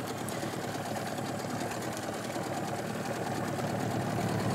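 A 20-horsepower outboard motor running steadily, pushing a small boat along.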